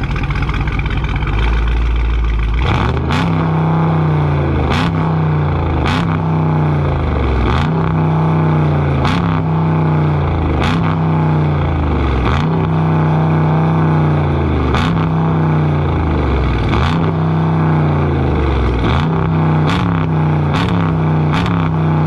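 Dodge 392 HEMI V8 with a mid-muffler delete and no catalytic converters, idling briefly and then blipped up and down about a dozen times, roughly every second and a half. There is a sharp snap near the top of most revs.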